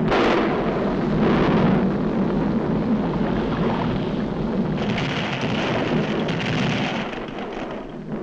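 Sound effects of a volcano erupting on an early-1940s cartoon soundtrack: a dense, continuous rumble and hiss like thunder and heavy rain. It starts loud, takes on more hiss about five seconds in and dips near the end.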